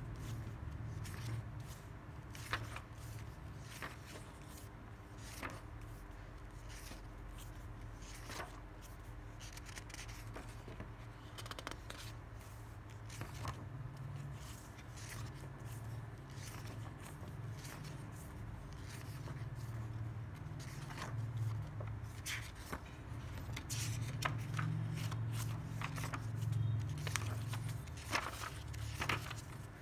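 Paper pages of a bound drawing book being turned by hand, sliding and flicking over one another in a run of short scrapes and clicks, with a steady low hum underneath.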